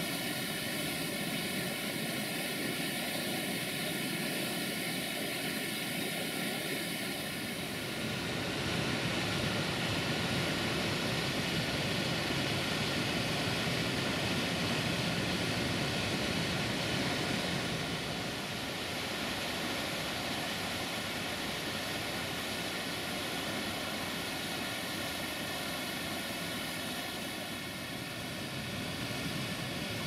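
Steady rush of river water running over rapids and spilling from a waterfall, a little louder and fuller about eight seconds in.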